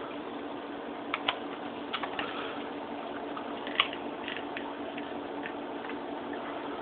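Dog pawing and nosing into couch cushions to bury a bone: a scattering of short scratches and clicks of its claws on the upholstery between about one and four seconds in, over a steady hiss and low hum.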